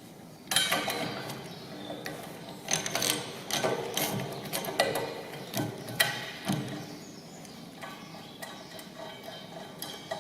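Socket ratchet clicking and metal clinking as bolts are worked loose, with a few sharp metallic knocks among the uneven clatter.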